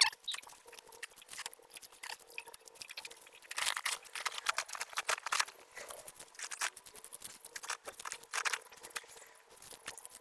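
Dry, dead fern fronds rustling and crackling as gloved hands pull and gather them up, in irregular crunching and snapping sounds.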